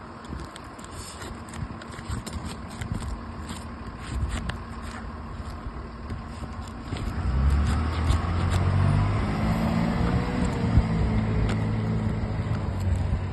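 Scraping and scattered clicks of a flat steel roofing tool working under asphalt shingles to break the seals. About seven seconds in, a louder low engine rumble from a motor vehicle comes in and holds to the end.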